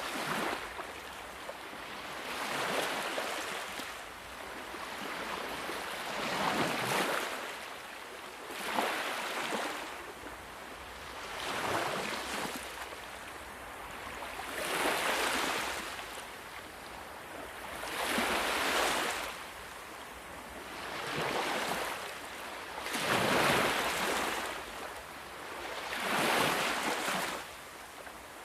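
Sea waves washing onto a shore, each wave a rising and falling rush of surf that comes every two to four seconds.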